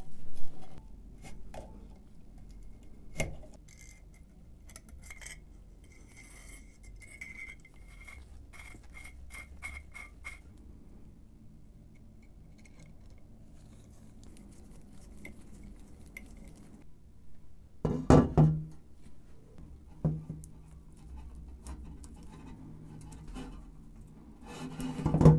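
Small brass and steel stove parts clinking and tapping as they are handled and fitted together. There is a run of light, even ticks in the first half, and a few louder knocks near the start, about 18 seconds in and at the end.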